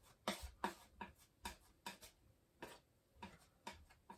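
Palette knife scraping and tapping against a palette while mixing oil paint: a string of short, faint strokes, about two a second.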